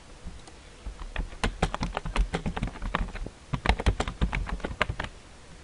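Typing on a computer keyboard: a quick run of key clicks, with a short pause a little over three seconds in.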